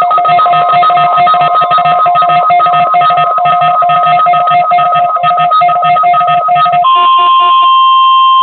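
A loud, music-like passage of two steady high tones over a fast, even rhythmic pattern. About seven seconds in, a single steady high-pitched tone takes over: the NOAA Weather Radio warning alarm tone sounded for the weekly test.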